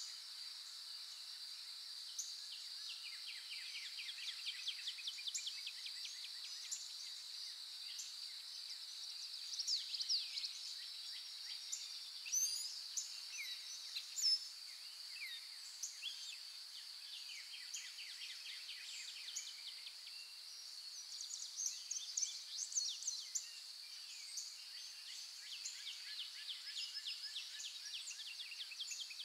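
Outdoor nature ambience: many short bird chirps over a steady, high-pitched insect drone.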